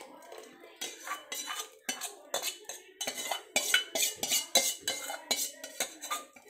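Steel spoon scraping and clinking against the inside of a steel mixer jar as ground coconut masala paste is scraped out into a pot. The clinks and scrapes come sparsely at first, then quick and loud for the last few seconds.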